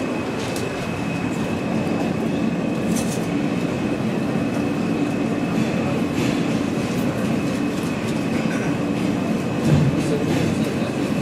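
R160 subway car running through the tunnel, heard from inside the car: a steady rumble of wheels on rail with a thin, steady high whine and scattered clicks over the rail joints. A single thump about ten seconds in.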